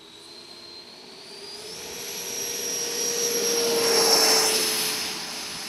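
Radio-controlled SAAB J32 Lansen model jet's engine on its takeoff roll: a whine that rises in pitch and grows louder as the model races past close by, peaking about four seconds in, then dropping slightly in pitch and fading as it moves away.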